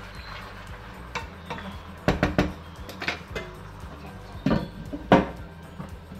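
Wooden spoon knocking and scraping against a large non-stick pan as pieces of meat are stirred, then a glass lid set on the pan with a couple of sharp clacks, the loudest about five seconds in.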